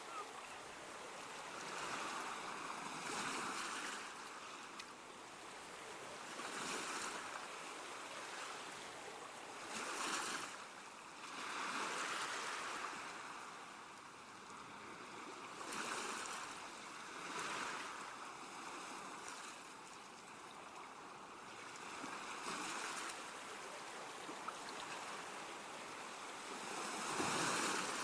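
Moving water: a steady rush with soft swells every two to four seconds, the loudest near the end.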